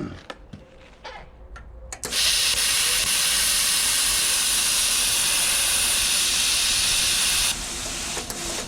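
Plasma cutter set to 35 amps firing up about two seconds in: a sudden loud, steady hiss of the cutting arc and compressed air. A few seconds later the arc cuts out and a quieter hiss of air carries on.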